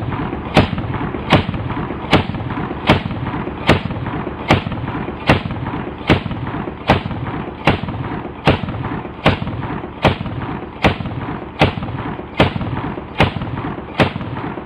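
AA-12 12-gauge shotgun firing single shots at an even, steady pace, about one shot every 0.8 seconds, some nineteen shots in all.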